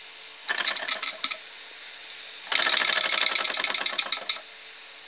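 Mamod model steam traction engine's single oscillating cylinder chuffing in rapid strokes as the flywheel is flicked by hand. It runs in two short bursts, a brief one and then a longer, louder one of nearly two seconds, before dying away. The owner blames this on too little steam pressure, with worn safety valve seals letting steam escape.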